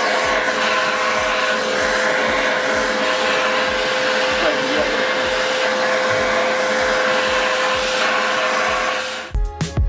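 American Micronic 21-litre, 1600-watt wet/dry vacuum cleaner running steadily, a constant whine over the rush of its motor. About nine seconds in it cuts off suddenly and music begins.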